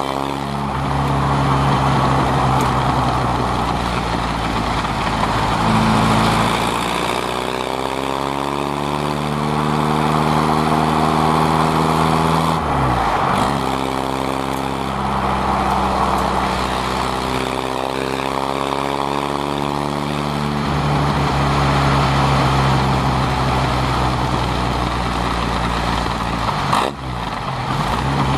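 1962 Morgan Plus 4's Triumph four-cylinder engine accelerating along the road, its pitch climbing and dropping back at each gear change, with steady wind and road noise in the open cockpit.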